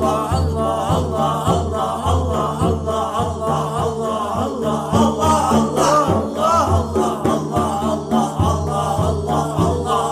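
Islamic zikr chanting: voices sing a melodic devotional line over a steady low drone and a regular pulse.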